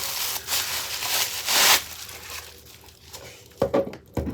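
Packaging crinkling and rustling as a tray is unwrapped, loudest about a second and a half in. A few light knocks follow near the end.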